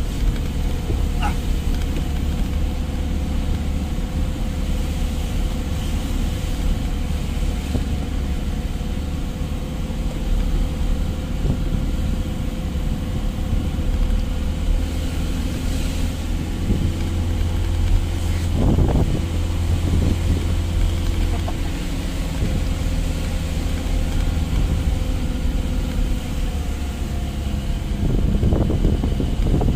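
Truck engine running steadily on the move, a continuous low drone with a steady hum above it; the deepest part of the drone eases off about two-thirds of the way through.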